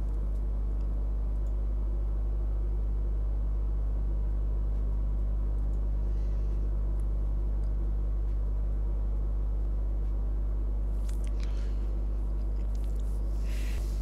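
Steady low electrical hum with a buzz of evenly stacked overtones, holding an even level throughout. A few faint, brief noises sound about six, eleven and thirteen seconds in.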